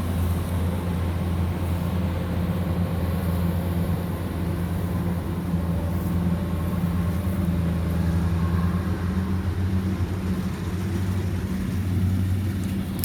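Kubota DC-105X combine harvester's diesel engine running steadily under load while cutting rice, a constant low drone with the threshing machinery's hum, dipping slightly about ten seconds in.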